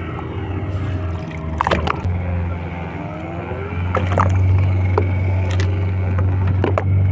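A boat engine idling with a steady low hum, broken by a few sharp clicks or knocks.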